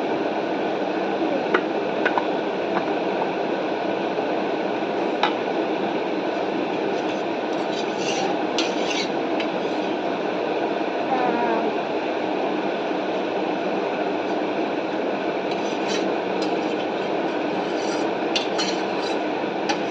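A steady hiss of background noise, with scattered light clicks and scrapes of a metal fork against a foil food packet, clustered about eight seconds in and again near the end.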